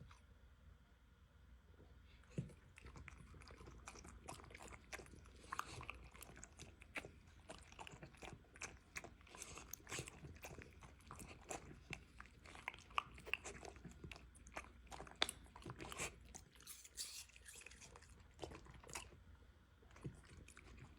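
A dog biting and chewing a piece of apple, with irregular crisp crunches throughout.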